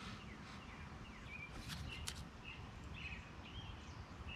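Faint outdoor background with scattered short bird chirps, and a couple of sharp clicks about a second and a half to two seconds in.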